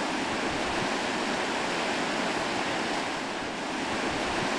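River rapids: white water rushing over rocks in a steady, even rush.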